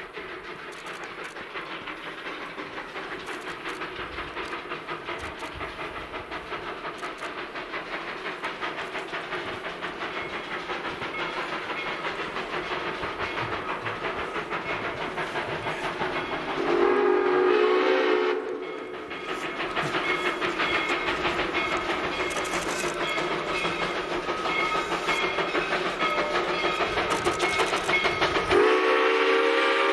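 Two-foot gauge steam locomotive approaching under a heavy working load, its exhaust chuffing in a fast, even rhythm that grows steadily louder. The steam whistle sounds a blast of about a second and a half a little over halfway through, and a longer blast begins near the end.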